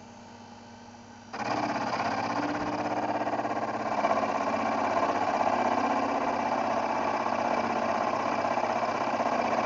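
A small milling spindle's motor switches on about a second in and runs steadily. It gets a little louder about four seconds in, while milling the piston of a model diesel engine lighter.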